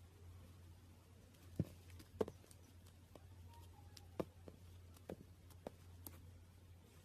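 Slime being handled, giving scattered small sticky pops and clicks, about six of them spread unevenly, over a low steady hum.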